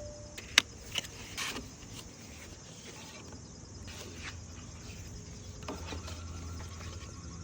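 Unboxing an Apple Watch Ultra 3, its cardboard packaging being handled: a sharp click a little over half a second in, a softer click, then a brief scrape and a few faint taps. A low steady hum comes in near the end.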